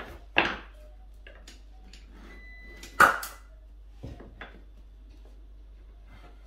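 A manual caulking gun working as adhesive is run under a batten: two sharp clacks about two and a half seconds apart, with a few lighter clicks between and after.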